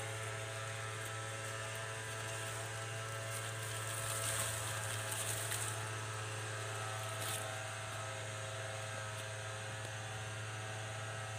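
Steady low hum with a row of even overtones, unchanging throughout. Brief rustling of leaves and grass about four seconds in.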